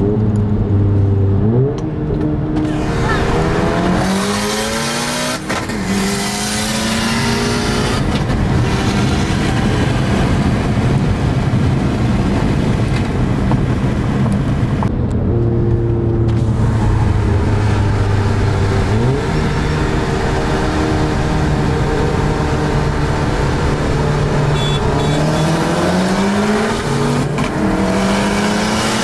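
VW GTI's turbocharged four-cylinder engine, fitted with an IS38 turbo and running on E30, heard from inside the cabin. It pulls hard at full throttle in a highway roll race. The engine note holds steady, then climbs in pitch in long rising sweeps as it runs up through the gears, over steady road and wind noise.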